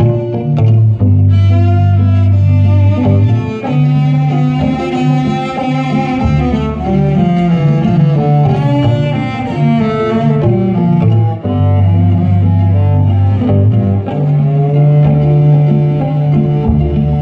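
Cello music: a bowed cello melody over deep, held bass notes, with some notes sliding in pitch.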